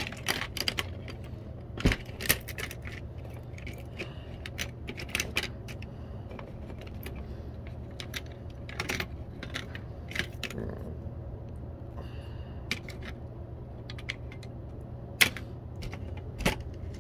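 Irregular sharp clicks and clinks of small hard objects being handled, coming in clusters, with the loudest knocks about two seconds in and near the end, over a steady low hum.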